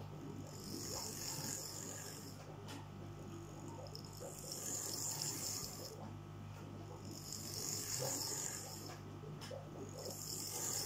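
OO gauge model locomotive's small DC motor running on the track, a buzzing whine that swells and fades about every three seconds as it passes close by. It runs cleanly now that the carbon has been cleaned off its commutator.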